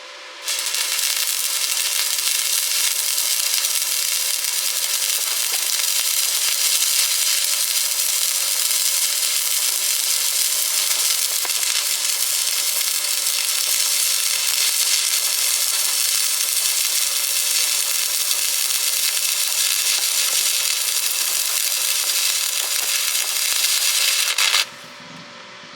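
Stick-welding arc crackling steadily as a bead is run, striking abruptly about half a second in and breaking off sharply near the end.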